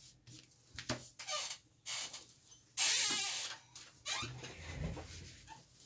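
Wide flat paintbrush scrubbing paint onto textured mixed-media paper in short scratchy strokes, with one louder rushing scrape of about a second near the middle.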